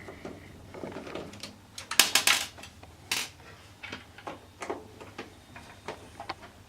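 Screwdriver undoing the screws that hold a desktop PC's power supply in its metal case: a run of small metallic clicks and scrapes, loudest as a quick cluster of clicks about two seconds in and one sharp click a second later.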